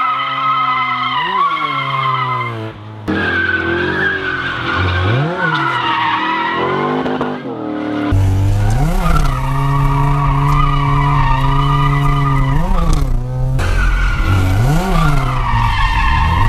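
Cars drifting: engines revving up and falling back again and again, with tyres squealing. About halfway the sound cuts to a deeper, louder engine note from a Corvette's V8.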